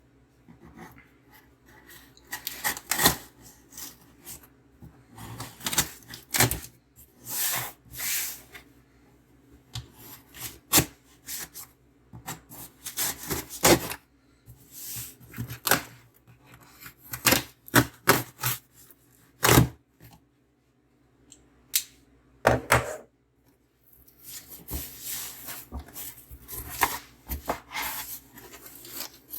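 A cardboard shipping box being cut open with a knife and unpacked: scraping, tearing and rustling in short irregular bursts with brief pauses between.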